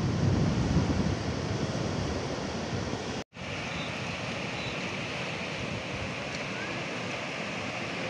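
Ocean surf breaking and washing over a rocky reef shore, with wind buffeting the microphone as a low rumble in the first three seconds. The sound cuts out for an instant about three seconds in, then the surf goes on as a steadier hiss.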